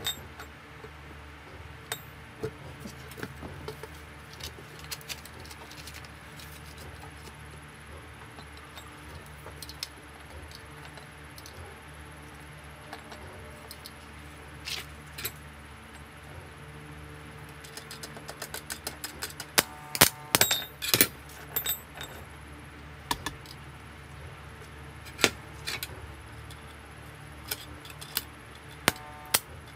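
Scrap iron rods and a welding clamp clinking and knocking as they are handled and set in place. A quick run of clicks builds to a few loud clanks with a brief metallic ring about two-thirds of the way through.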